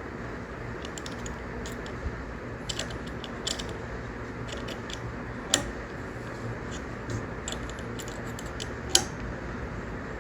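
Scattered small clicks and taps of parts and tool being handled while a 3D printer's Bowden tube fitting is tightened, the two sharpest about halfway through and near the end, over a steady low hum.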